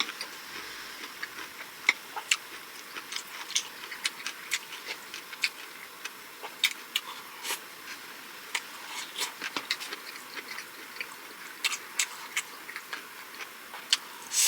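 Close-miked eating sounds: a person chewing pancakes, seasoned vegetables and rice, with irregular wet mouth clicks and smacks several times a second.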